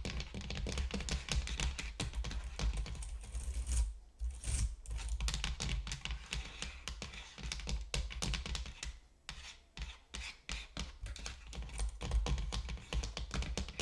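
Fast typing on a computer keyboard, a dense run of key clicks that stops briefly twice, about four seconds in and again about nine seconds in.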